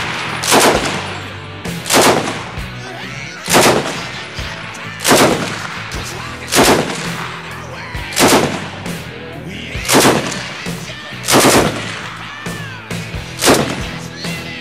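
M1941 Johnson light machine gun firing about nine separate shots, roughly one every second and a half, each a sharp crack with a short echo.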